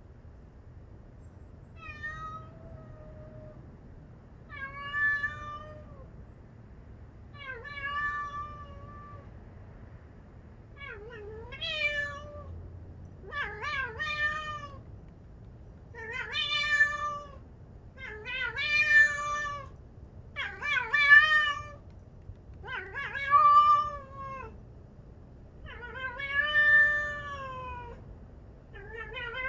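Domestic cat meowing over and over, about eleven drawn-out pitched meows spaced two to three seconds apart, getting louder about a third of the way in.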